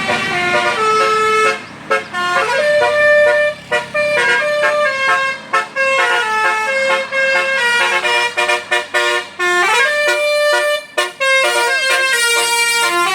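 A bus's Basuri 'telolet' multi-tone horn playing a quick tune: a run of short and held notes with a couple of rising slides, broken by brief pauses between phrases.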